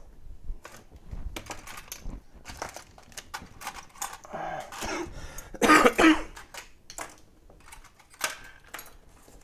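Metal hand tools such as tweezers, scissors and pry tools clicking and tapping as they are picked up and set down on a rubber work mat, in scattered light clicks. A louder, short burst of noise comes about six seconds in.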